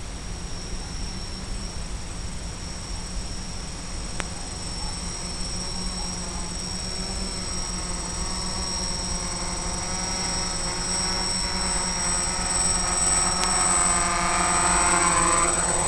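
A motor's pitched hum grows steadily louder, then drops in pitch and fades near the end as it passes. Under it runs a steady high-pitched electronic whine.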